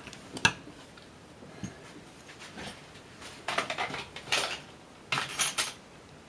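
Small metal hand tools and instrument parts clinking and clattering on a workbench: a sharp click about half a second in, then several short bursts of clinks in the second half.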